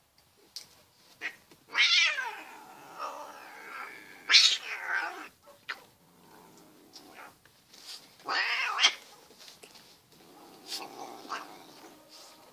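Domestic cat yowling during rough play-fighting with a puppy: about four loud, drawn-out calls that fall in pitch, the first two seconds in and the last, weaker one near the end.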